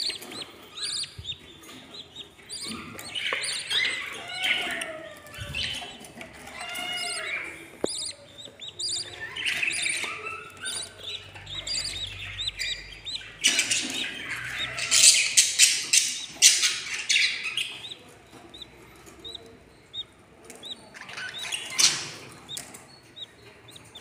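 Budgerigar chicks chirping with short, repeated begging calls. A little past halfway comes a stretch of loud rustling and scratching in the wood-shaving nest bedding, with another brief rustle near the end.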